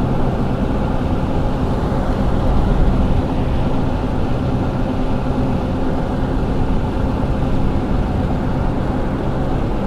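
Car driving along a paved highway at a steady speed, heard from inside the cabin: a steady mix of engine hum and road noise.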